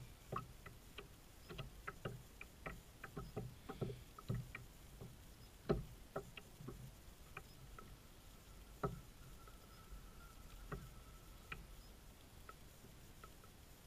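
Small waves slapping against a plastic kayak hull in irregular light knocks, frequent at first and sparser later. A faint steady whine sounds for a few seconds past the middle.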